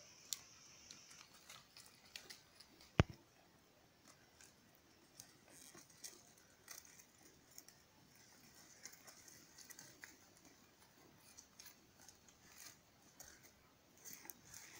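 Sheep browsing on cut leafy branches: faint, irregular snapping, leaf tearing and chewing, with the branches rustling. A sharp click about three seconds in.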